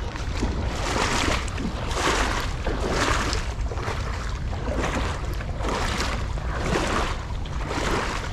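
Wading steps sloshing through shallow creek water, about one step a second, over a steady low rumble.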